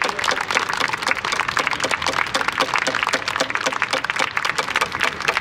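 A crowd applauding, many hands clapping steadily throughout.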